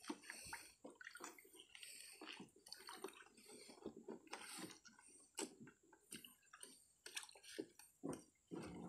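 Faint, irregular dripping and small splashes of water as a wet fishing net is hauled over the side into a small boat.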